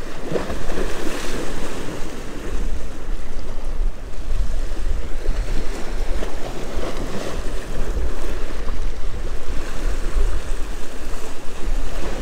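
Wind buffeting the microphone over the steady wash of waves breaking on the jetty's rocks.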